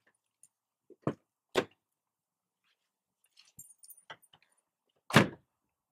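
A car's driver door being shut with one solid thud about five seconds in, by far the loudest sound. Before it come two sharp knocks about a second in and a few faint jingling clicks of keys.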